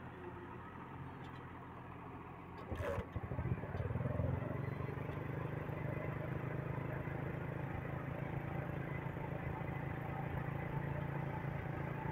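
Flatbed truck's engine running steadily, then louder from about three seconds in as the truck moves off, with a brief clatter at that moment.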